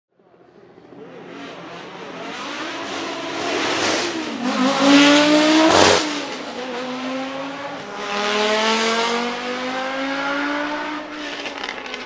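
Audi Sport Quattro S1 E2 Group B rally car's turbocharged inline five-cylinder engine accelerating hard, its pitch rising twice through the gears. It fades in at the start, and a single sharp crack about six seconds in is the loudest moment.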